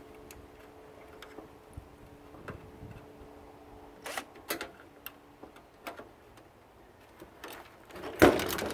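Scattered light clicks and taps of parts being handled during the teardown of a security monitor, with a faint steady hum that stops about five seconds in and a louder knock near the end.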